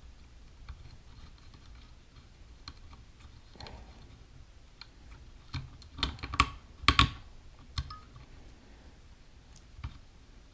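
Light clicks and taps of small shotgun parts being handled while a bolt is fitted against spring pressure, with a cluster of louder clicks and knocks about six to seven seconds in.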